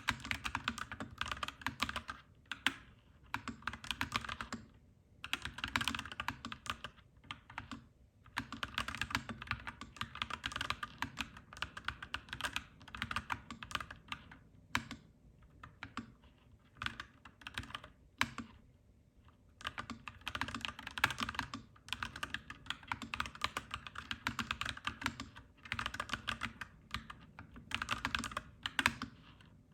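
Clacky mechanical keyboard being typed on in quick runs of keystrokes, with brief pauses every few seconds.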